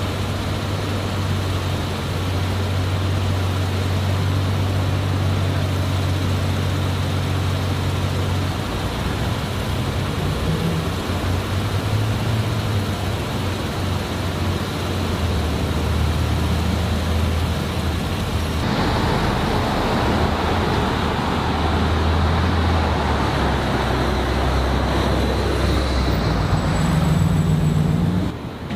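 Motor vehicle engines idling with a steady low hum, under traffic noise; about two-thirds of the way in, a louder hiss of noise joins.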